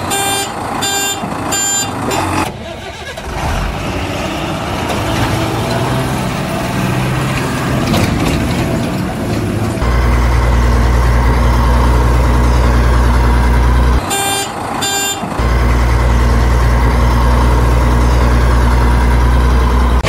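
Heavy machinery engine running, with a reversing alarm beeping three times at the start and twice again a little past the middle. About halfway through the engine settles into a louder, steady drone.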